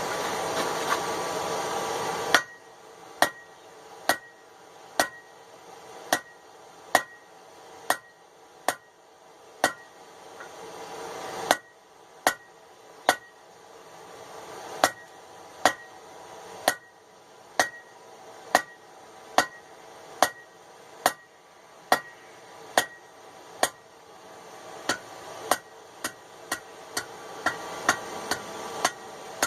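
Blacksmith's hammer striking hot 3/8-inch steel bar on the anvil, each blow ringing briefly, about one blow a second, with lighter, quicker blows near the end. A steady rushing noise cuts off about two seconds in, just before the hammering starts.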